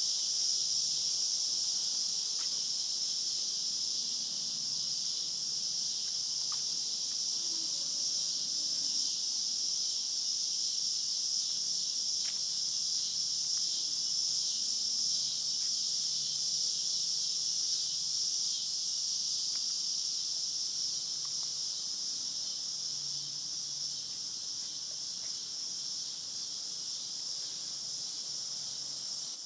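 Unbroken, high-pitched chorus of summer insects, running steadily.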